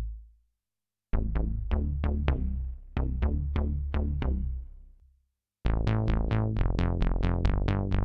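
Cherry Audio DCO-106 software synthesizer, a Juno-106 emulation, playing bass presets: a line of short repeated bass notes, about three a second, that stops about five seconds in. After a brief gap a brighter sawtooth bass pattern starts with faster repeated notes.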